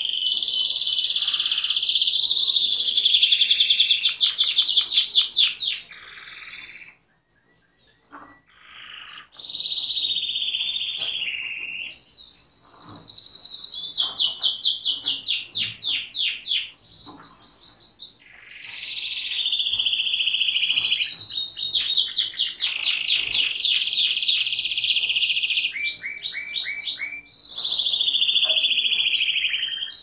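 Domestic canary singing a long song of fast trills and repeated rolling phrases, with a short pause about seven seconds in.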